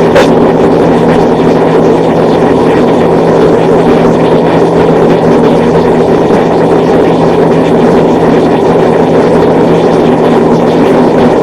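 Lasko box fan running: a loud, steady rush of air from the blades over a steady motor hum, with one short click right at the start.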